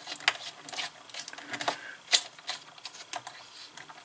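Irregular clicks and rustling as hands handle insulated hookup wires and work them into a circuit board's screw terminal block, with one sharper click about two seconds in.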